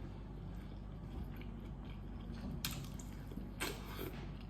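A person chewing a mouthful of seafood boil, with faint mouth sounds and two sharp smacks, one about two and a half seconds in and one about a second later.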